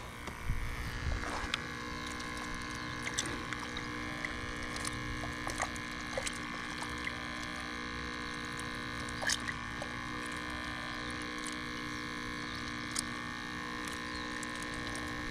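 Small battery-powered aerator pump on a minnow bait bucket buzzing steadily, with a few faint clicks over it.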